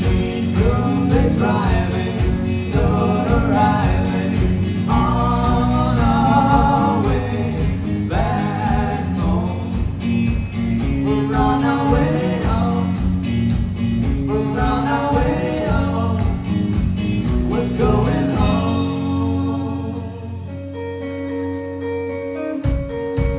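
Live rock band playing, with a lead vocal over electric guitars and drums. Shortly before the last third the drums drop out and held guitar notes ring on. Near the end the drums come back in.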